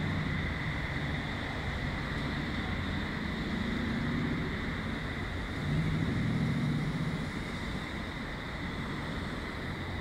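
Steady road traffic passing on a busy road, with vehicle engine hum swelling louder a couple of times, mixed with wind buffeting the microphone.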